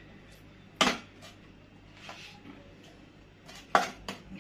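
Metal spoon knocking against a stainless steel mixing bowl while yogurt is spooned in: two sharp clinks, about a second in and near the end, with a few lighter taps between.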